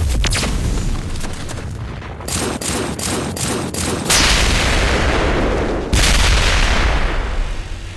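Dubbed-in sound effects: a rapid string of sharp, gunfire-like cracks and bangs, then two long, loud noisy blasts with a deep rumble, the first about four seconds in and the second about six seconds in, easing off near the end.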